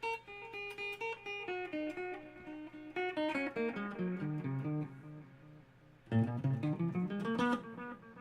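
Guitar played through a Caline Ghost Rain reverb-delay pedal: picked single-note runs that descend over the first few seconds, then a quick rising run about six seconds in, over a steady low hum.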